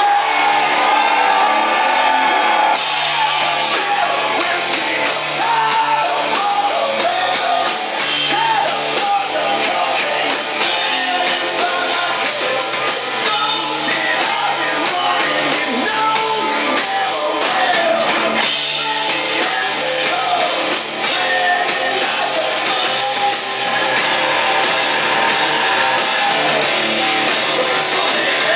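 Live rock band playing: a male singer singing into the microphone over electric guitar and a drum kit.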